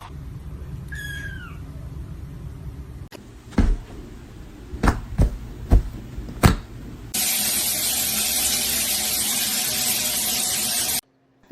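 A short falling cat meow over a low hum, then a handful of sharp knocks, then a steady loud hiss that cuts off abruptly.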